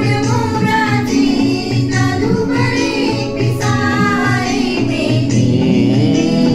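Women singing a Marathi song, the melody winding up and down over a low, steady pulse about twice a second.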